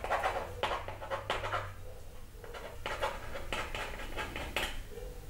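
Pen scratching on paper laid in a metal bowl, in a series of short strokes as a name is written out by hand.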